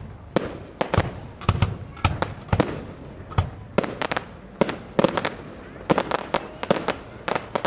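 Fireworks going off: a steady run of sharp bangs and pops, some single and some in quick crackling clusters, about one to three a second.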